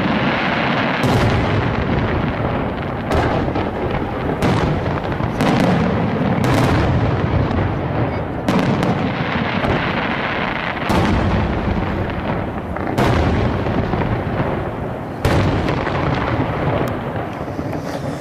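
Aerial firework shells bursting one after another, about ten loud bangs one to two seconds apart, each trailing off in a long rumble.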